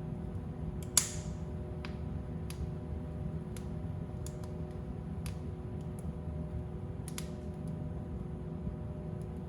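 Fire burning in a fireplace: a steady low rumble with scattered sharp crackles and pops, the loudest pop about a second in.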